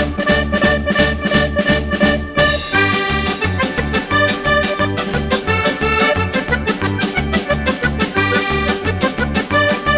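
Background music with a steady bass beat and sustained melodic notes, changing to a brighter section about two and a half seconds in.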